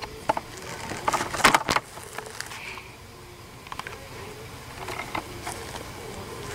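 Wooden hive bottom board clattering as it is slid back into place under a Japanese honeybee box hive, with a cluster of knocks about a second in and a few lighter ticks later. Bees buzz faintly around the hive entrance throughout.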